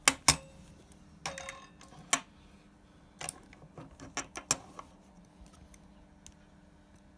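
Sharp clicks and taps of metal as a .308 cartridge is handled and set in a caliper to measure its overall length. There are about eight of them, two loud ones at the very start, and faint ticks follow.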